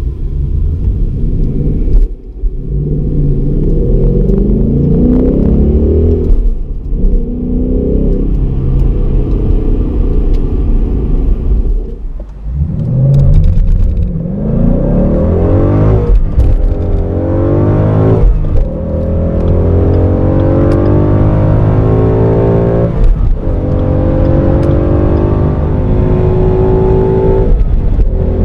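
2016 Ford Mustang GT's 5.0-litre V8 at full throttle, heard from inside the cabin. The revs climb through several gears, with a short dip at each upshift as the car accelerates past 180 km/h.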